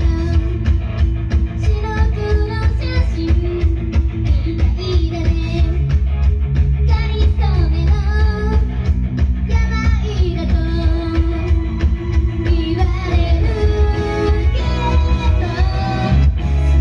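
Japanese idol group singing live over loud rock music with guitar and a heavy, pounding bass and drum beat.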